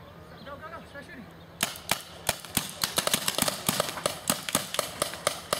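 Paintball markers firing a rapid, irregular string of sharp pops, several a second, starting about a second and a half in.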